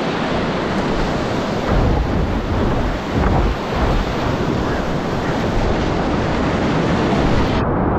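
Whitewater rapids rushing loudly around a kayak running a river drop, with low buffeting surges on the microphone about two and three and a half seconds in. Near the end the hiss abruptly turns duller.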